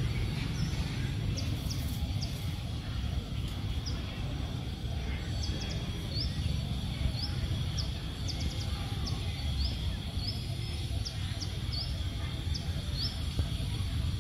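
A bird chirping over and over in short, high, quick calls over a steady low outdoor rumble.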